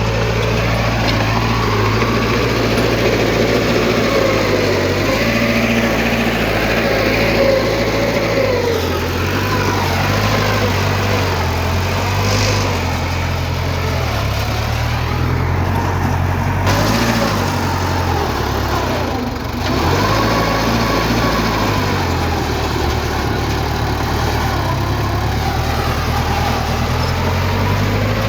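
Heavy diesel engine of earth-moving machinery running under load, its pitch wavering up and down as the revs change.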